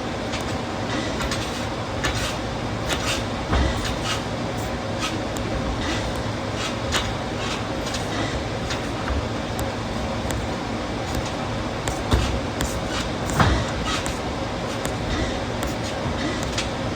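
Busy trampoline park hall ambience: a steady din of background activity with scattered sharp knocks and a few heavier low thumps, loudest near the end.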